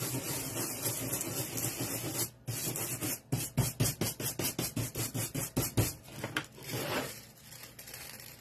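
Transfer foil sheet (Deco Foil) being scrubbed and rubbed down onto a wooden sunflower cutout to make it stick to the foil adhesive: a dry rasping rub, then quick back-and-forth strokes about five a second from about three seconds in, dying away around seven seconds in.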